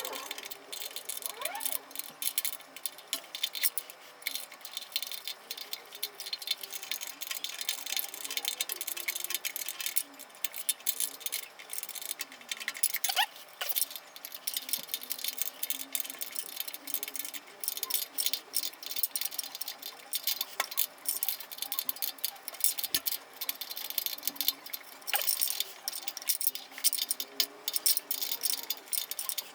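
Light, irregular metallic clicking and rattling as a hex key works the blade-clamping screws on a portable electric planer.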